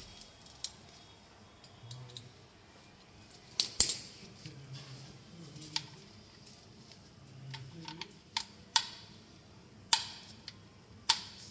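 Scattered sharp metallic clicks and clinks of hand tools and bolts being handled on the engine's front end, about eight in all, the loudest a close pair about three and a half seconds in.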